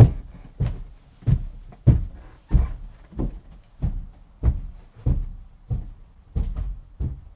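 Dull thumps at a steady beat, about three every two seconds, each one sharp at the start and fading quickly.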